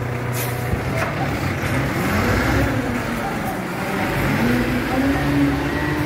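Garbage compactor truck's engine running, its revs rising and falling twice, over a steady low hum.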